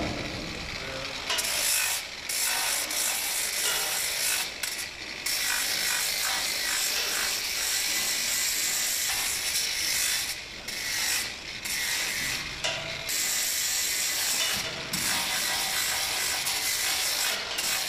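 Angle grinder grinding down an elephant's toenails and foot sole: a steady, hissing grind that starts about a second in and breaks off briefly several times.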